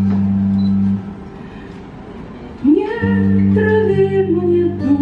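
Live band with guitar holding a steady low chord that breaks off about a second in. After a quieter stretch, a woman's voice comes in singing with a rising first note, and the accompaniment returns just after.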